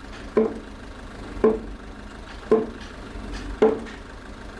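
Heavy blows of a mallet on timber, four evenly spaced strikes about a second apart, each with a short ring.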